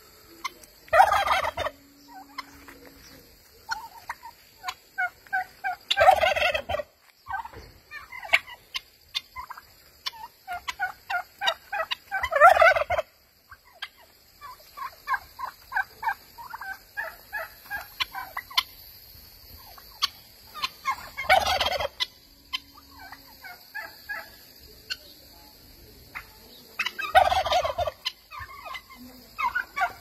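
Domestic turkey gobbling: about five loud, rattling gobbles several seconds apart, with softer quick rippling calls in between.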